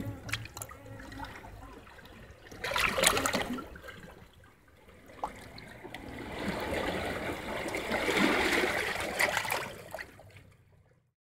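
Seawater washing in and trickling away among wet rocks, in two swells, the second longer, then fading away.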